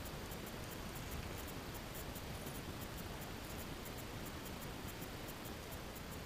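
Underwater sound of a gravel-bed river: a steady rush of current with a light, rapid clicking and scratching.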